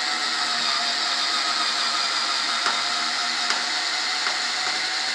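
A handheld electric power tool running steadily, a constant high whine over a hiss, with a few faint ticks partway through.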